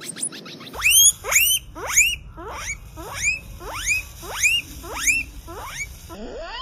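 Guinea pig wheeking: a run of about ten rising squeals, one every half second or so, each sweeping sharply up in pitch.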